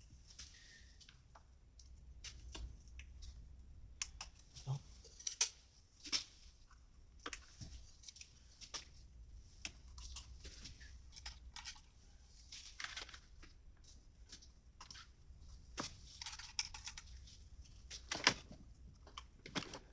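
Irregular small clicks, taps and handling noises of hand work on a diesel engine, fitting the retaining clips that hold the fuel return line onto the injectors; one sharper click near the end.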